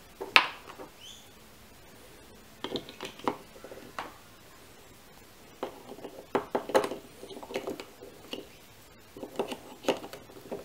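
Plastic clicks, taps and knocks as a GoPro dual battery charger, its cable and Enduro batteries with their plastic covers are handled and a battery is pressed into the charger. The loudest is a sharp click just after the start, followed by scattered groups of smaller clicks.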